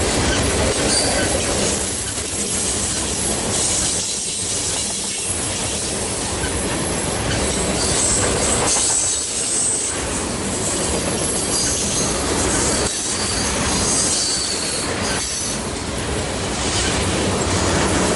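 A loaded freight train of ethanol tank cars rolls past at speed. Its steel wheels clack steadily over the rail joints, with brief high wheel squeals now and then.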